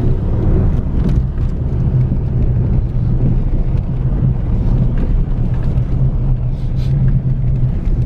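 Car driving on a rough dirt track, heard from inside the cabin: a steady low rumble of engine and tyres with scattered small knocks as it jolts over the bumps.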